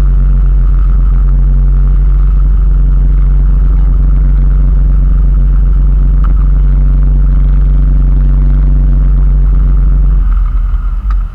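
Motorboat engine running steadily at towing speed, with the wake rushing behind the stern. A little after ten seconds in, the engine note drops and the sound falls back as the boat slows.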